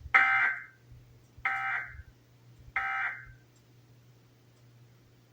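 Emergency Alert System end-of-message (EOM) data signal: three short bursts of digital SAME data tones, each about half a second long and about 1.3 s apart, the first the loudest. The bursts mark the close of the alert.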